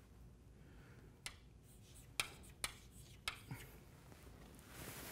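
Chalk tapping and scratching on a blackboard during writing: about five faint, sharp clicks spread over a couple of seconds, then a soft hiss near the end.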